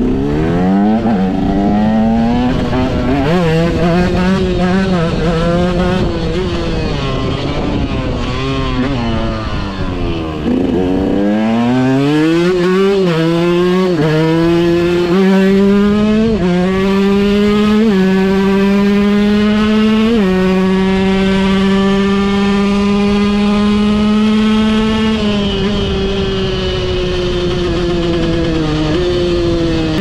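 2006 KTM EXC 125 two-stroke engine with an FMF Shorty silencer, ridden hard. For the first ten seconds or so it revs up and down, then drops low and pulls up through several gears, the pitch climbing and dropping back at each shift. It holds a steady high speed, then backs off near the end.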